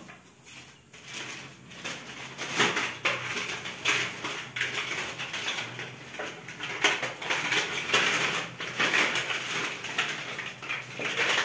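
Clear plastic bag crinkling and rustling in irregular bursts as it is rummaged through and a boxed toy is pulled from it.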